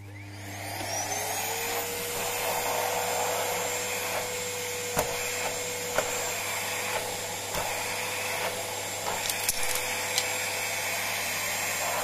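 Corded vacuum cleaner switched on: its motor whine rises over the first second or so, then runs steadily with the rush of suction as it is worked over the carpet for a sunflower seed. A few light knocks come in the middle.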